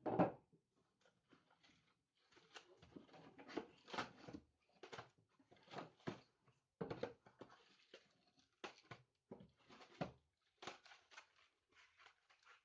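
Packs of fireworks and trays of firecrackers being handled and lifted out of a cardboard box: irregular rustling, scraping and light knocks of cardboard and plastic packaging, with one sharper thump right at the start.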